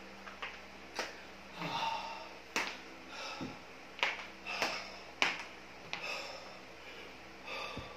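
A man breathing hard just after an all-out 20-minute effort on an indoor bike trainer, with a few sharp taps and knocks as he moves about the bike, over a steady low hum.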